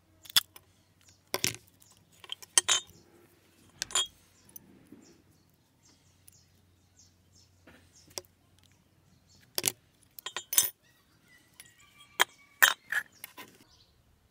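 Rusty metal bell pieces and pliers clinking and tapping on a stone table top while an old garden bell is taken apart: about ten scattered sharp clinks, a few of them ringing briefly near the end.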